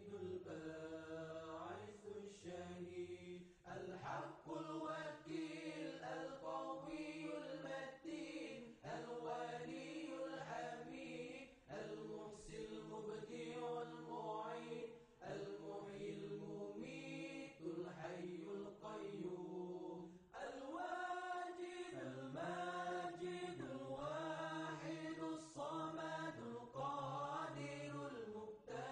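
Background music: a chanting voice carrying a melody over held low notes.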